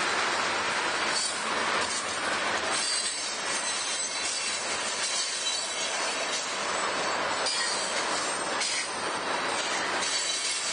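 Freight train cars rolling past on the rails, a steady rumble and rush with a faint high wheel squeal and a few clanks as the cars go by.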